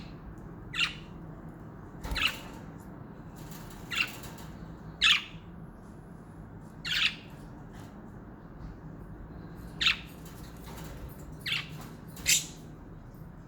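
Budgies (budgerigars) giving about eight short, sharp squawking calls, spaced irregularly a second or two apart, over a faint steady low hum.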